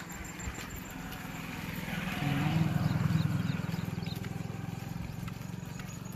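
A motorcycle passing close by: its engine gets louder for the first few seconds, is loudest around three seconds in, then fades away.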